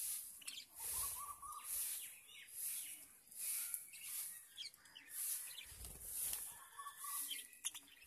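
A flock of budgerigars chirping and chattering, with short scattered warbles. A high hiss swells and fades about once a second behind them.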